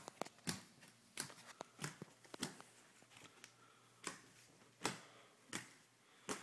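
Footsteps on carpet, coming up the last stairs and walking along a hallway: soft steps about every half second to second, with a short pause in the middle.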